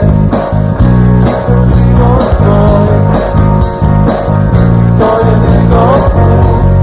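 Home-studio rock recording: guitar over sustained bass notes and an even drum-machine beat, with the guitar line bending in pitch.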